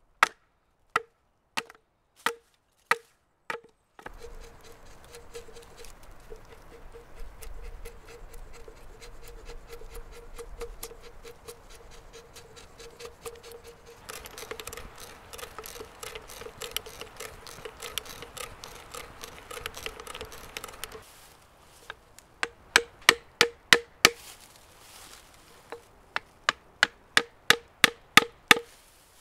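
A hatchet chopping into a peeled log, about six sharp strikes in the first four seconds. Then a brace and bit boring into the wood: a long steady scratchy grinding with fine ticks, getting louder partway through. Near the end, quick runs of sharp strikes as the hatchet taps wooden pegs into the log.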